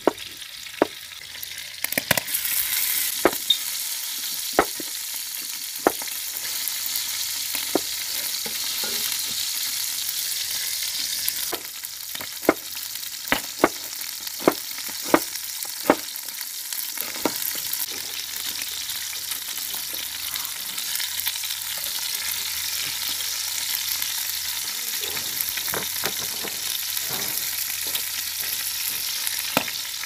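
Bacon sizzling steadily in a skillet over a kamado grill, with a run of sharp knife taps on a wooden cutting board as vegetables are sliced, clustered most thickly around the middle.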